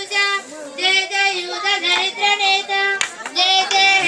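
High-pitched voices singing a melody, with held notes that bend between syllables. There is a sharp click or clap about three seconds in.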